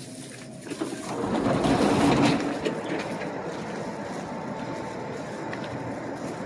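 Steady vehicle noise that swells for a second or two about a second in, then settles to an even level.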